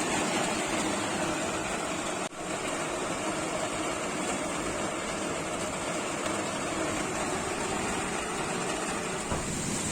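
Steady rain falling, an even hiss that breaks off for an instant a couple of seconds in.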